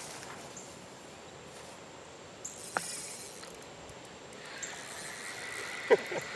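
Outdoor summer ambience of steady, high-pitched insect buzzing over a faint hiss, with a few sharp clicks, the loudest near the end.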